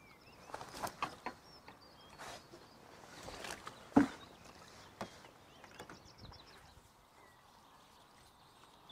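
Scattered knocks and clicks of fishing pole and tackle being handled at a seat box, with one sharp knock about four seconds in as the loudest. Birds chirp faintly.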